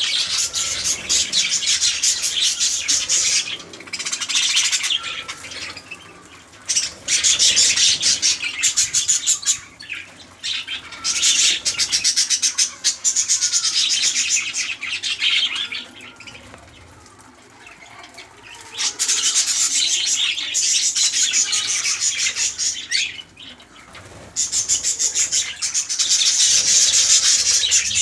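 Budgerigars chattering in long runs of rapid, scratchy warbling lasting several seconds each, broken by a few short pauses.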